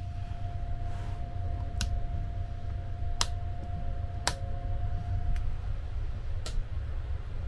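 Steady low rumble of the moving sleeper train, with four sharp clicks of the compartment's light switches being pressed as the room lights go off. A thin steady tone runs under it and stops a little past halfway.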